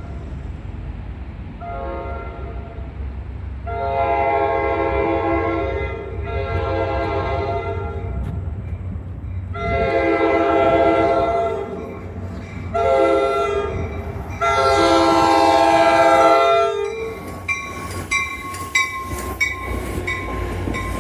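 An approaching Metro-North train's multi-tone horn sounds a string of blasts, mostly long with one short one, the last four in the grade-crossing pattern of long, long, short, long, over a low rumble from the train. After the horn stops, sharp clicks follow as the train arrives.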